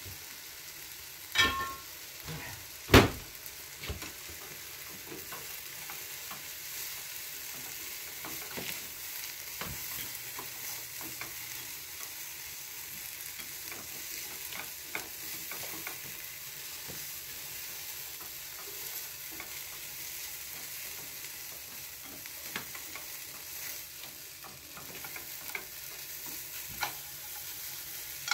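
Julienned carrots for kinpira sizzling in oil in a frying pan while being stirred: a steady sizzle with scattered light clicks of the utensil against the pan. Two sharp knocks come in the first few seconds.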